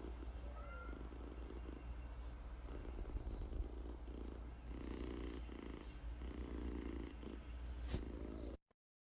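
Domestic cat purring, swelling and easing in a steady rhythm about once a second with its breathing, then cutting off abruptly near the end.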